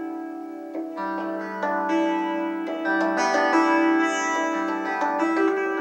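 Electric guitar playing 'harp harmonics': 12th-fret harmonics on the sixth, fifth and fourth strings, plucked with the thumb behind the index finger, alternating with the open third, second and first strings. The notes ring into each other, a new one about every half second, and together sound like a harp running up a scale.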